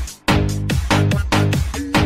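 Electronic dance music with a steady beat and bass line.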